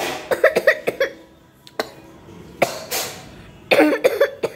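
Short wordless bursts of a person's voice in three groups, about a second in, near the middle, and near the end.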